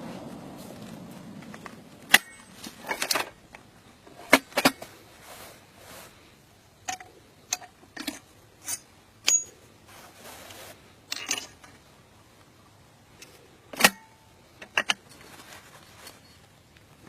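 The rumble of a recoilless rifle shot dies away, then a string of sharp metallic clicks and clinks follows at irregular intervals, typical of the weapon or its ammunition being handled.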